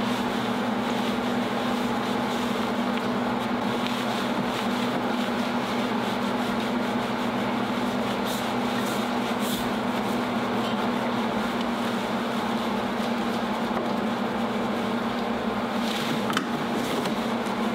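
A machine running steadily: an even drone with a constant low hum, unchanged throughout, with a few faint ticks.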